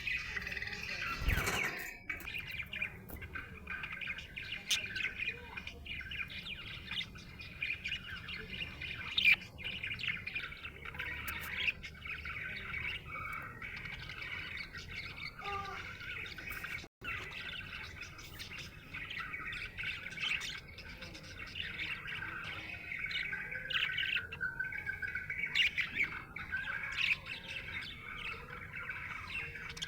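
Budgerigar chirping and chattering without pause, a busy warble of short chirps with occasional harsher squawks. There is a momentary cutout a little past halfway.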